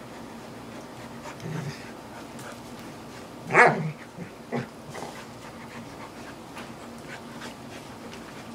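Two dogs, an Old English Sheepdog and a chocolate Labrador Retriever, play-wrestling and mouthing each other: a short low growl about a second and a half in, then one loud short cry about three and a half seconds in, followed by a few small snaps and snuffles.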